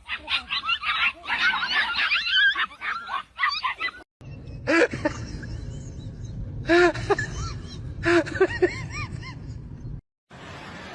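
Animals calling: first a fast, dense run of high, bending calls, then a few short pitched calls over a low rumble.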